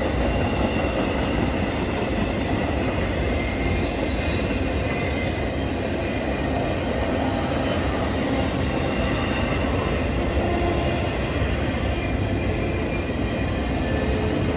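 Freight train of intermodal well cars, most of them empty, rolling steadily past: a constant rumble of wheels on rail that holds its level throughout.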